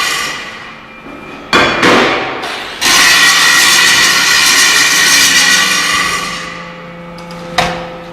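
Metal struck hard with a hammer: two blows about a second apart early on and another near the end, each leaving a long metallic ring that slowly dies away.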